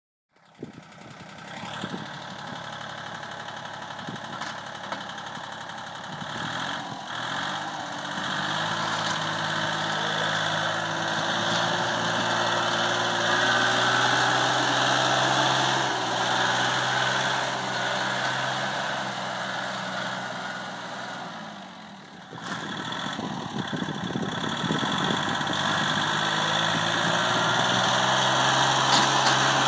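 Iseki TU 185 compact tractor's 23 hp three-cylinder diesel engine running steadily while the tractor pushes snow with a front blade. The engine note rises a few seconds in, and the sound dips briefly about three quarters of the way through before picking up again.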